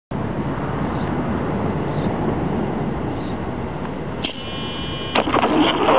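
Steady background hiss picked up by the truck-mounted camera. About four seconds in comes a high-pitched whine of several steady tones from the Traxxas Stampede VXL's brushless motor as it is powered up. Near the end, rattling clicks and a rising rush of noise follow as the truck starts to move off over the grass.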